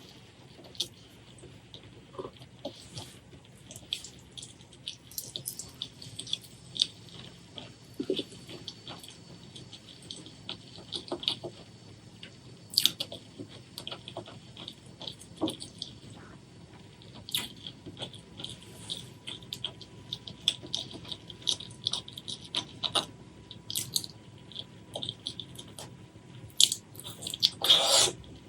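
Close-miked eating sounds: wet chewing, smacking and mouth clicks, with a longer, louder burst near the end.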